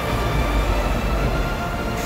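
Refrigerated semi-trailer truck pulling slowly past, a steady low rumble, with sustained background music over it.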